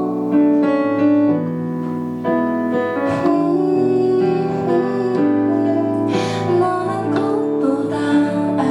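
Live band music: piano or electric keyboard playing slow, held chords, with a soft female voice singing in places.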